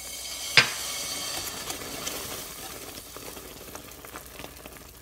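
Hot caramel, near 250 °F and just off the heat, sizzling as vanilla extract is poured in. The sizzle swells, then dies away over a few seconds, with one sharp tap about half a second in.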